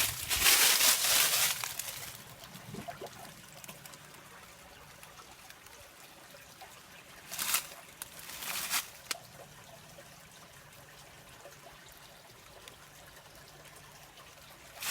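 Spring water trickling out of a small cave, a faint steady trickle. Brief noisy bursts break over it, the loudest in the first two seconds and two shorter ones about halfway through.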